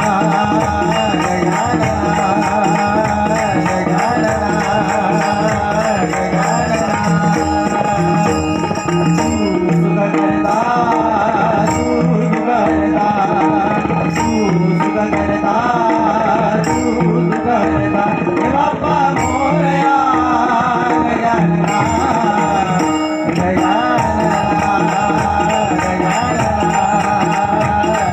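Devotional bhajan music: a hand-drum beat in the tabla family carries a steady rhythm under a wavering melody line.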